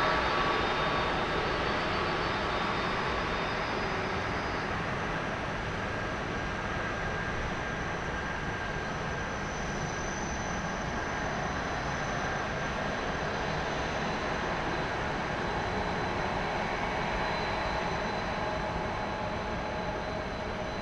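Twin Pratt & Whitney PW4000 jet engines of an Airbus A330-200F freighter running, a steady rush with a thin high whine, easing down over the first few seconds and then holding steady.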